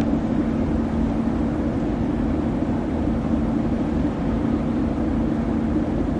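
Steady drone of a river cargo vessel's diesel engines: a constant low hum with a deeper rumble beneath it.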